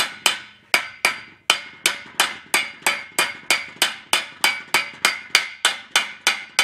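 Hammer tapping a new bearing cup into the upper bore of a Willys CJ3A front axle's steering knuckle housing. The taps are steady, about three a second, and each one rings briefly off the steel.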